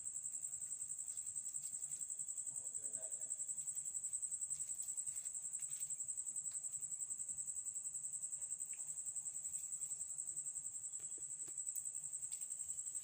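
Insects chirring: one steady, high-pitched trill that pulses rapidly and evenly, with a few faint clicks scattered through it.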